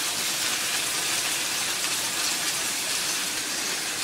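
Masala-coated chicken leg pieces frying in hot oil and butter in a stainless steel pan, a steady sizzle.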